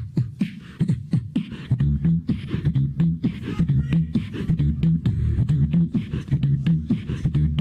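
Human beatboxing: a fast run of mouth clicks, kick and snare sounds over a low hummed bass line, done as a kung fu movie soundtrack.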